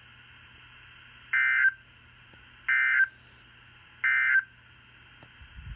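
Three short bursts of Emergency Alert System SAME data tones, evenly spaced about 1.3 s apart: the end-of-message signal that closes a severe thunderstorm warning. A faint steady hum lies underneath, and the sound is narrow and band-limited like a radio broadcast.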